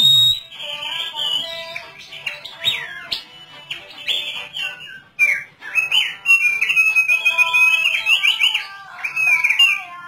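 Thick-billed white-eye singing: a long, fast run of high warbling notes that sweep quickly up and down, fuller and louder in the second half. A brief low thump sounds right at the start.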